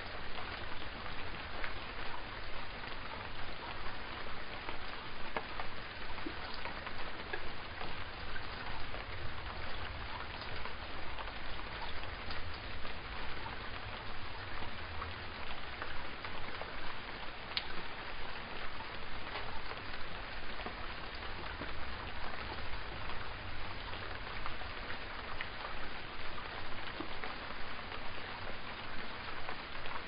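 Steady rain falling: an even hiss dotted with the small ticks of single drops.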